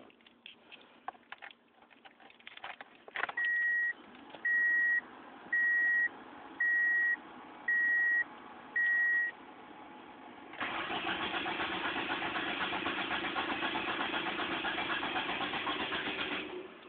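Key clicks, then a dashboard warning chime beeping six times. After that, the 1998 Ford Escort ZX2's 2.0-litre four-cylinder is cranked on the starter for about six seconds without catching, and the cranking stops suddenly. It will not start with the Superchips-chipped ECU fitted, which the owner suspects is a bad chip.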